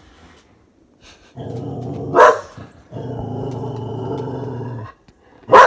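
A dog growling in long, low, steady stretches, with a sharp bark about two seconds in and another loud, sharp bark near the end.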